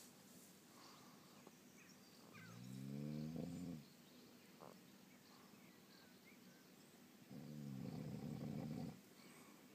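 A man snoring: two long buzzing snores of about a second and a half each, roughly four seconds apart, with quiet breathing in between.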